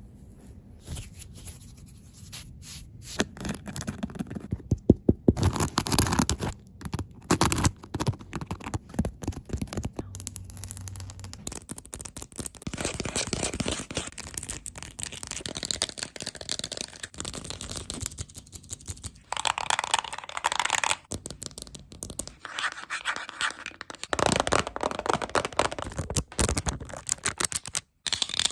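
ASMR trigger sounds made close to a microphone: quick scratching and scraping on objects mixed with rapid tapping, changing abruptly several times from one trigger to the next.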